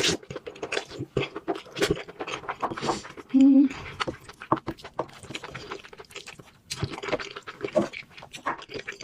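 Close-up eating sounds: a steady run of wet mouth clicks and smacks from chewing food, with a brief low hum about three and a half seconds in.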